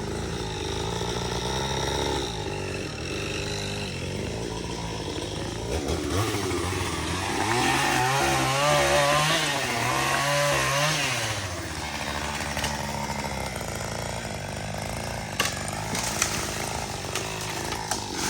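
Gas chainsaw running, revving higher for a few seconds midway while cutting wood, then easing back to a steadier run.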